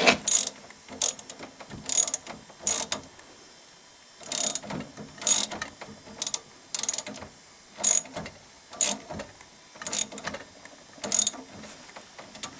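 Socket ratchet clicking in short bursts as it is swung back and forth to tighten the screw of a hose clamp, with a brief pause about three seconds in.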